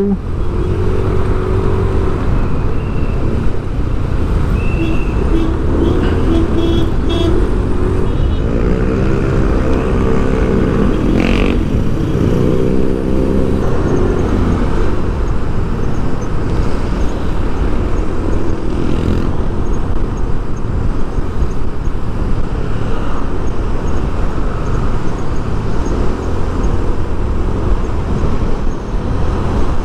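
Road travel noise: a steady rumble of vehicle and traffic noise while moving along the road. In roughly the first half, an engine's note holds, then rises and falls several times, as a vehicle accelerates and changes speed.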